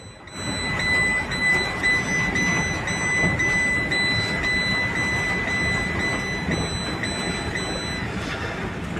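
Steady rush of floodwater with a steady, high-pitched electronic alarm tone sounding over it, pulsing faintly about twice a second and cutting out near the end.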